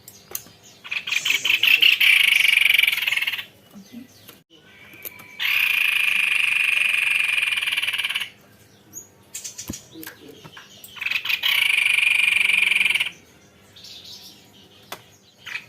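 White-bibbed babbler (tepus leher putih) singing long rolling trills: three dense, buzzing trills of two to three seconds each, starting about one, five and eleven seconds in, with short chirps between them.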